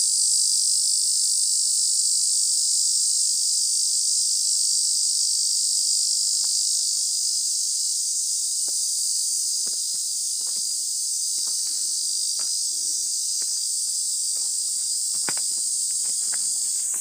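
Cicadas singing in a loud, steady chorus, a continuous high-pitched hiss. From about six seconds in, scattered footsteps and crunches join it.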